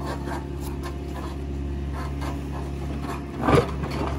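Excavator's diesel engine idling steadily while a buried corrugated plastic conduit is tugged and dragged out of loose soil, with scraping and rustling, loudest a little after three seconds in.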